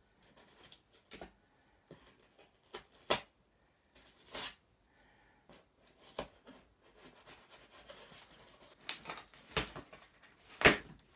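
Knife scraping and cutting at packing tape on a cardboard box, with scattered rubs and knocks as the box is handled. The loudest knock or rip comes near the end, as the flaps are pulled at by hand.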